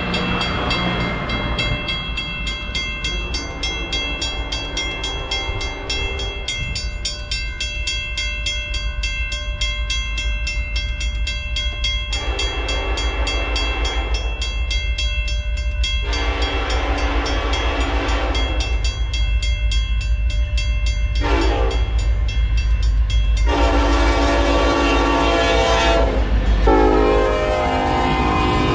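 Western-Cullen-Hayes mechanical crossing bell ringing rapidly and steadily, while a diesel freight train's rumble grows louder. The locomotive horn sounds the grade-crossing signal: two long blasts, a short one, then long blasts, the last dropping in pitch as the locomotive passes.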